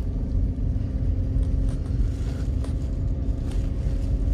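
Suzuki Alto being driven, heard from inside the cabin: a steady low rumble of engine and road noise with a faint steady hum.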